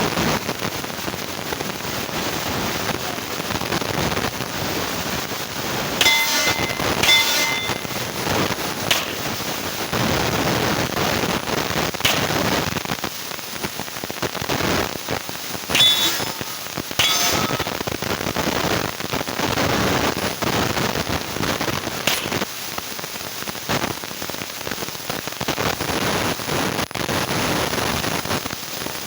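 Pistol shots in two pairs, each pair about a second apart, with steel targets clanging and ringing briefly after the hits, over a steady crackling hiss.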